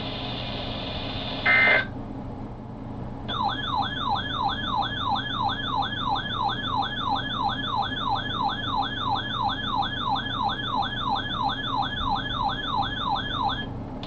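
Weather radio receiver's alert siren: an electronic tone sweeping up and down about three times a second for some ten seconds, signalling that a severe thunderstorm warning has come in. A brief electronic burst sounds just before it.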